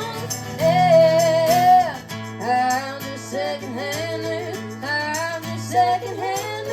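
Band playing a rock song with guitar under held tones, while a singer carries a wavering melodic vocal line in short phrases over it.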